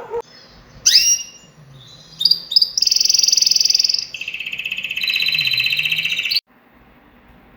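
Birds calling: a few short rising chirps, then two long, rapid high trills held at a steady pitch. The sound cuts off abruptly about six seconds in.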